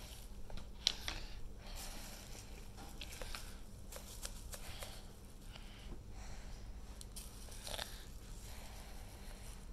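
A plastic bottle and bubble wrap handled in a basin of water: quiet scattered clicks, crinkles and small splashes. The sharpest click comes about a second in, with a cluster of light clicks in the middle and another click near the end.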